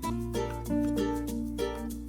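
Background music: a light, upbeat plucked-string tune over a steady bass line.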